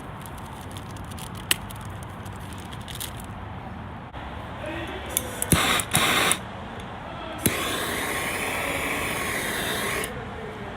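Water spray bottle squirting twice in quick succession, then a longer hiss of spray lasting about two and a half seconds, wetting the surface so the vinyl racing stripe glides into place.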